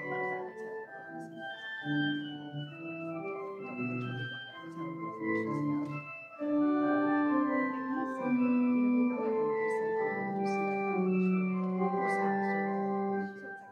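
Church organ playing slow, sustained chords. It grows louder about six and a half seconds in and holds a long low chord before falling away near the end.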